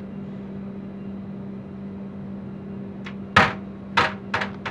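A 14-pound sledgehammer swinging on a hinge strikes ribbed aluminium caravan cladding with a sharp metallic bang about three and a half seconds in. It bounces and strikes again, a little less loudly, about half a second later, then gives a few small knocks. The two strikes leave two big dents in the sheet.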